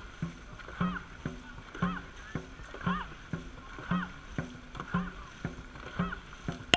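Dragon boat crew paddling in rhythm: a shouted stroke call comes about once a second to keep the cadence, with paddle strokes in the water between calls. A sharp knock near the end.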